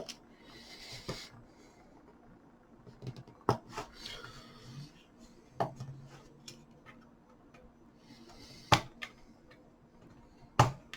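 Rubber feet being pried off the plastic underside of an HP 14 laptop: scattered sharp clicks and taps of a tool on the case, with two short stretches of scraping, one near the start and one around the middle.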